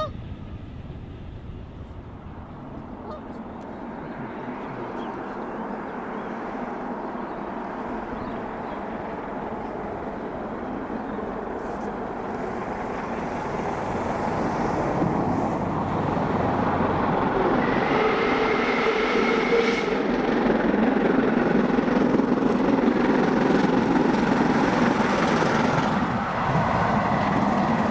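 Steam locomotive 44871, an LMS Stanier Black Five 4-6-0, approaching and passing at speed with a train of coaches. Its exhaust and the rolling of the wheels on the rails grow louder from a few seconds in and are loudest through the second half, with a few brief high steady tones about two-thirds of the way through.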